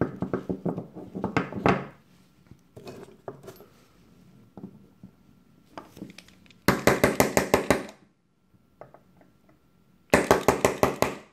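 A small hammer tapping a pin into an Ithaca Model 37 shotgun's steel trigger group, giving light metallic taps. They come in three quick runs of about eight taps a second: at the start, about seven seconds in, and near the end, with a few faint clicks between.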